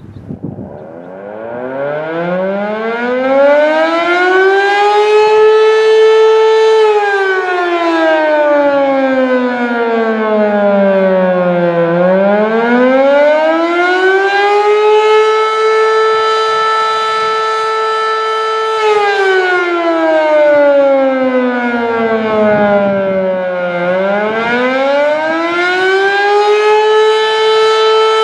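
Fedelcode Model 7 fire siren starting up and sounding the attack signal. Its pitch winds up from low to a steady high tone, holds for a few seconds, then falls and winds back up again, twice, in wails about twelve seconds apart.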